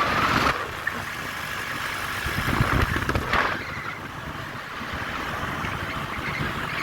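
A road vehicle on the move: steady engine and road noise, swelling louder for a moment around three seconds in.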